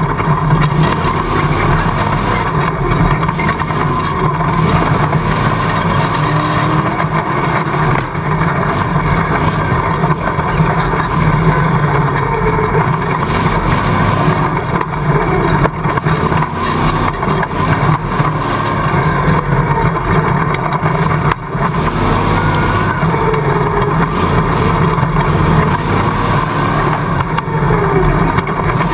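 A rock bouncer buggy's rear-mounted stroked LS V8 runs hard and loud without a break, heard from inside the open tube-chassis cab. The engine note wavers as the throttle is worked, with a brief dip about 21 seconds in.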